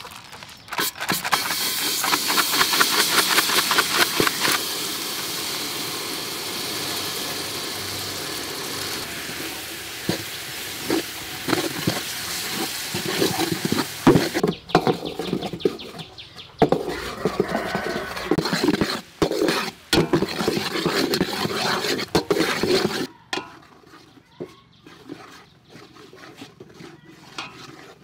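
Palm sugar sizzling and crackling as it melts and caramelizes in a hot metal pot, with stirring and scraping in the pot. The sizzle drops away sharply about five seconds before the end, leaving only scattered faint clicks.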